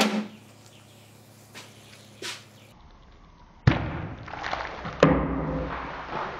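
A soda can knocks down onto a wooden table at the start. About three and a half seconds later the plastic bottle-style topper snapped onto the can blows off suddenly, forced off by built-up carbonation, and cola sprays and fizzes out, with another sharp knock about a second later.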